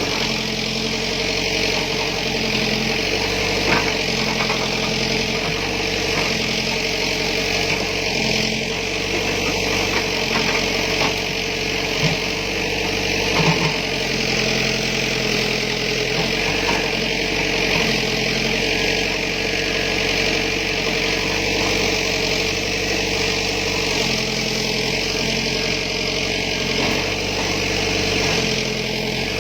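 Backhoe's diesel engine running steadily, its low tones shifting in short stretches as the machine works, with a few sharp knocks standing out.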